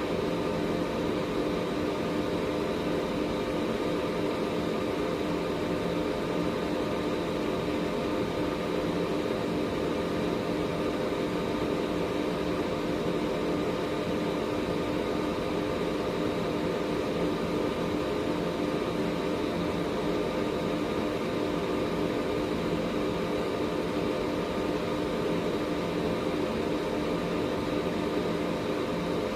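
Air purifier fan running steadily: an even rush of air with a constant hum and a few faint steady tones through it.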